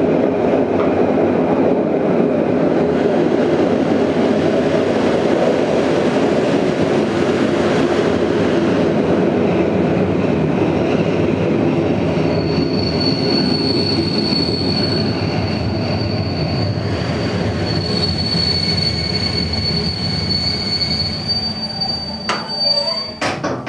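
Passenger train rumbling along the track, heard from inside the carriage. About halfway through, a high, steady wheel-and-brake squeal sets in and holds. Near the end the running noise falls away, with a few sharp clicks.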